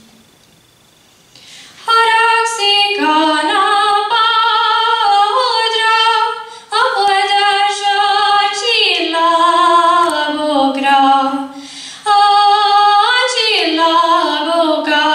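A girl sings a Hungarian folk song solo and unaccompanied into a microphone, holding long, slowly bending notes. After a short pause she takes up a new line about two seconds in, and she breaks briefly for breath near the end.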